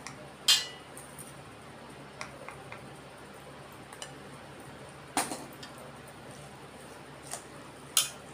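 Metal spoon clinking and tapping against a steel cup and a steel mixing bowl while chilli powder is spooned in: scattered light clinks, with two louder ones about half a second in and about five seconds in.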